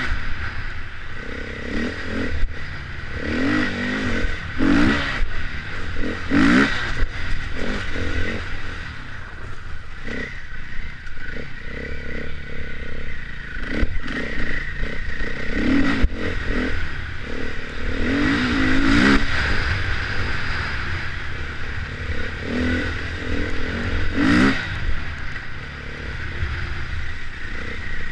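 Enduro motorcycle engine heard from on board, revving up and down again and again as it rides a rough dirt trail, with clattering and sharp knocks from the bike going over stones and ruts.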